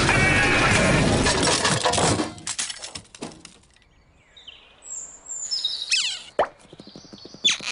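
Cartoon car sound effect: a small car's engine and tyre noise that cuts off suddenly about two seconds in. It is followed by a few faint bird-like chirps and a couple of sharp pops near the end.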